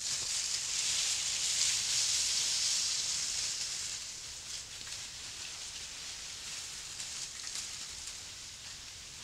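A small dead tree dragged through dry fallen leaves, a continuous scraping rustle mixed with footsteps in the leaf litter. It is loudest in the first few seconds and fades as it moves away.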